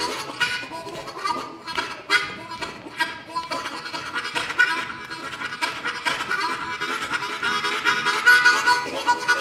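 Harmonica cupped in both hands and played solo into a microphone: a quick rhythmic run of chords and single notes, growing a little louder toward the end.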